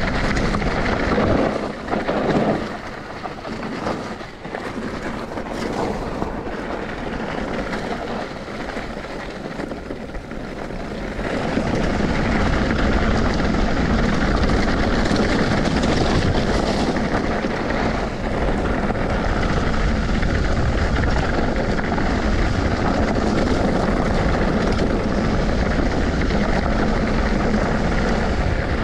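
Vehicle running while riding, with rushing wind noise. The sound drops off from about two seconds in, then comes back louder and steady from about eleven seconds in.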